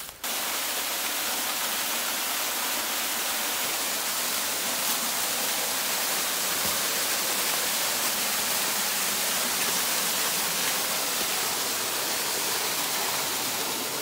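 Small woodland waterfall splashing into its pool: a steady, even rush of water.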